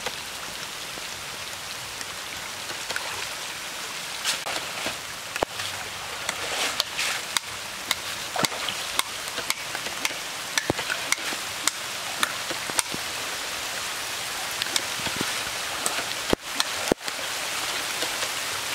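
Rain falling on a shallow river's surface: a steady hiss with many scattered sharp drop ticks.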